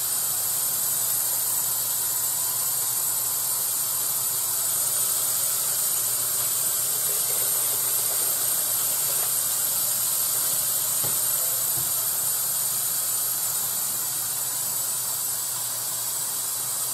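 Hot water running steadily from a kitchen faucet: a constant, even hiss.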